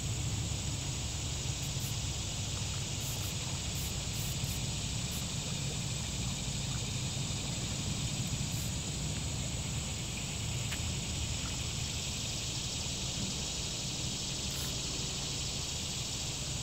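Steady outdoor background noise: a low rumble and an even high hiss, with a few faint clicks and no distinct event standing out.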